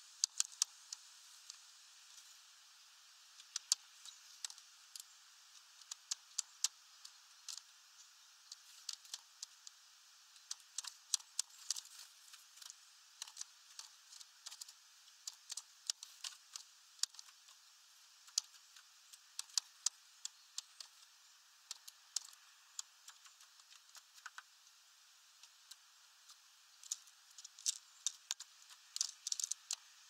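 Great spotted woodpecker pecking at seeds on a bird feeder: irregular sharp taps and clicks, often in quick clusters of a few.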